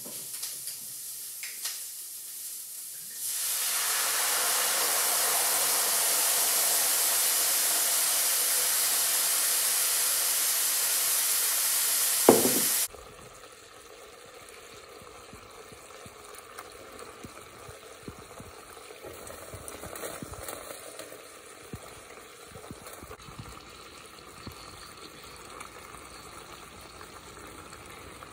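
Food sizzling loudly and steadily in a hot pan for about ten seconds, cutting off abruptly. It is followed by the quieter hiss of onion gravy simmering in a skillet, with light clicks of tongs and utensils.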